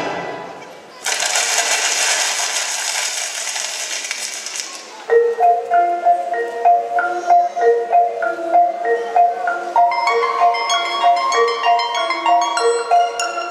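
Music from the act's score. A short hissing, rustling stretch gives way about five seconds in to a repeating mallet-percussion melody, marimba-like, with short plucky notes several per second, which fills out with more notes about ten seconds in.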